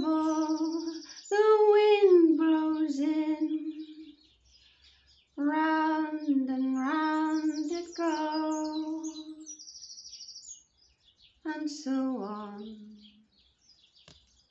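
A woman singing a solo, unaccompanied improvised melody in three phrases separated by short pauses; the last phrase falls in pitch.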